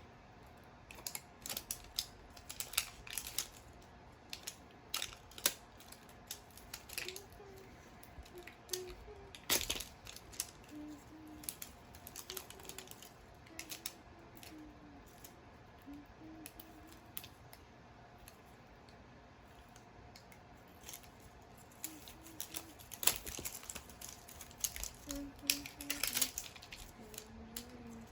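Plastic toy packaging being handled and peeled open: irregular crinkles, crackles and sharp clicks, with quieter stretches in the middle.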